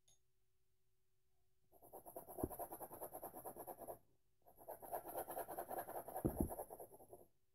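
Colored pencil scribbling in quick back-and-forth strokes on paper laid on a wooden floor, in two spells of two to three seconds with a short pause between, and a few soft knocks.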